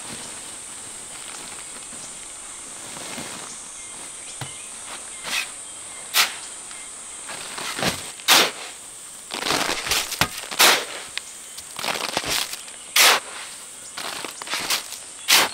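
A long-handled digging blade scraping and scooping into a pile of damp sand, in irregular strokes that start about five seconds in and come thicker in the second half. Under it runs a steady high drone of insects.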